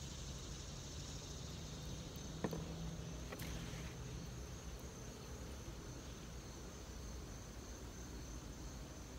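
Steady high-pitched chirring of insects in the background over a faint low rumble, with a short knock about two and a half seconds in and a faint click a second later.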